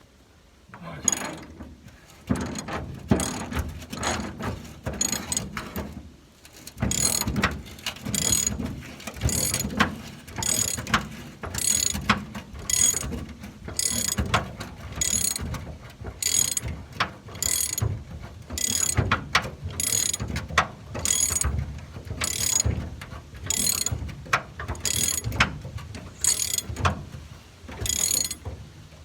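Hand ratchet on 1/2-inch drive with a T55 Torx bit, turning out a truck bed bolt. The ratchet clicks through repeated back-strokes, irregular at first and then steadily about once a second.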